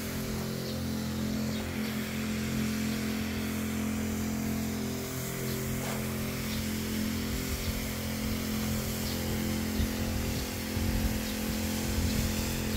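Motorised water sprayer running steadily, its pump giving an even hum over the hiss of the spray as it mists water.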